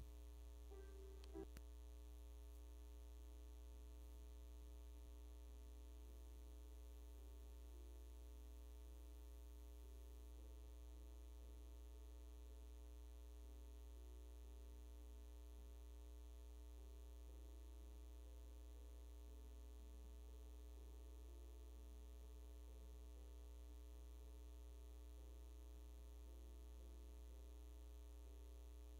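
Near silence apart from a steady electrical mains hum in the sound system's feed.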